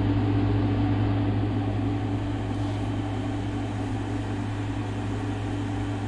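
A steady low machine hum that does not change, like a fan or other motor running.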